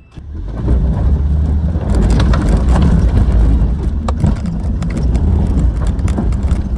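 4x4 vehicle driving up a rocky off-road climb: the engine runs hard under load and the tyres crunch and crackle over stones and gravel, starting about half a second in.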